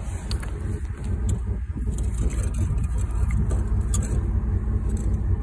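Steady low rumble of an idling engine, with a few light clicks and knocks.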